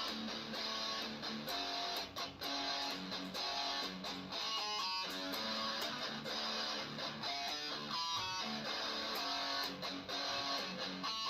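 Fender Stratocaster electric guitar playing riffs, picked notes and strums, with quick runs of single notes about four seconds in and again near the end.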